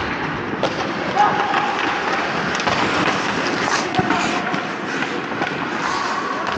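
Ice hockey play at the crease: steel skate blades scraping and carving the ice, with several sharp clacks of sticks and puck against the goalie's pads, and players' voices echoing in the rink.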